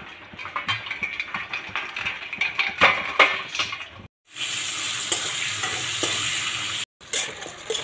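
Steel bowls and plates clinking and knocking as crabs are handled in water, then, after a short break, sliced onions sizzling steadily in hot oil in a wok while a metal spoon stirs them. More clinks come near the end.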